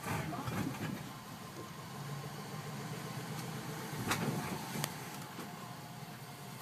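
2014 Range Rover Sport moving slowly, its engine and rolling heard from inside the cabin as a low steady hum, with a couple of sharp knocks about four and five seconds in.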